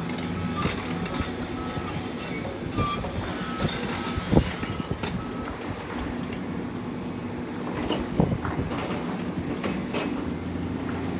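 Heavy construction machinery running steadily, with scattered metal clanks and squeals; the loudest clanks come about four and eight seconds in. A backup alarm beeps in the first few seconds.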